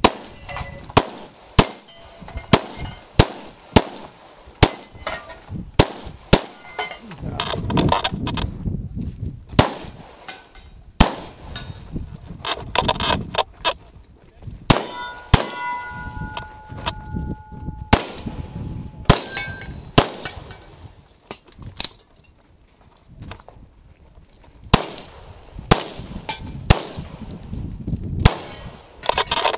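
Pistol shots fired in quick strings, with steel targets ringing with a metallic clang after hits. A short lull comes a little past the middle before the firing resumes.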